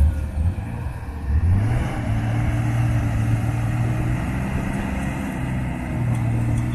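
Toyota Land Cruiser 80-series engine running as the truck crawls down a steep dirt slope. The engine note rises about a second and a half in and holds steady, easing off briefly before picking up again near the end.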